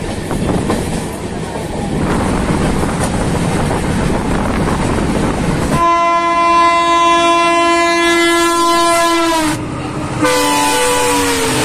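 Indian Railways train running, with steady wheel and rail noise, then a train horn sounding twice. The first is a long, steady blast from about six seconds in; the second, near the end, falls in pitch.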